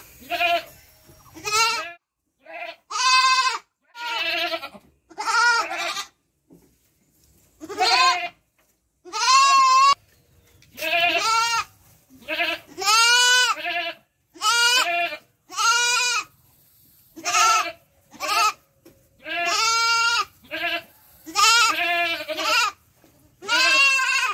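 Young goat bleating over and over while lifted and held in someone's arms, the distress calls of a restrained kid. Loud, quavering bleats come about one a second, with a short break about six seconds in.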